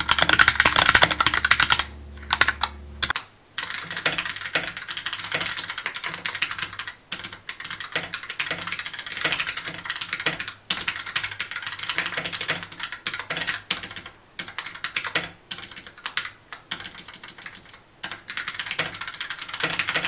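Typing on a Keychron K2 mechanical keyboard: a steady stream of key clicks, loudest for the first three seconds.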